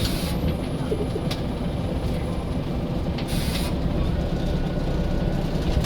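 Scania L94 single-deck bus's turbocharged diesel engine running, heard from on board as a steady low drone. There is a short hiss about three seconds in, and a faint steady whistle in the last couple of seconds.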